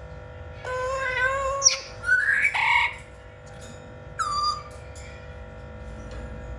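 Blue-fronted Amazon parrot calling: a held call that ends in a sharp rising squeak, then a harsh squawk, then a short squawk falling in pitch about four seconds in.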